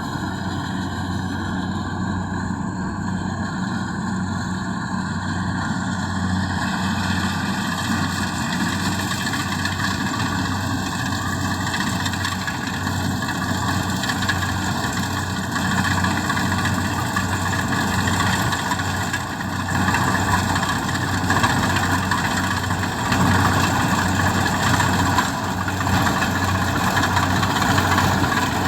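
Kubota DC-70G combine harvester's diesel engine running steadily, joined about six seconds in by a wider mechanical rush that grows louder toward the end.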